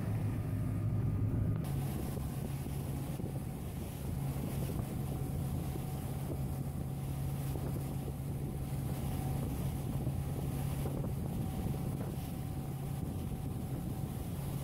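Motorboat under way, its engine running with a steady hum over the rush of water along the hull, and wind on the microphone.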